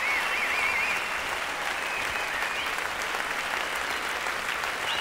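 Theatre audience applauding steadily, welcoming a performer onto the stage, with a wavering high-pitched call over the clapping in the first second.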